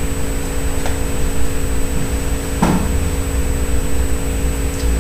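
Steady room hum: a low rumble with a few constant tones. A faint click comes about a second in and a short knock-like sound a little past the middle.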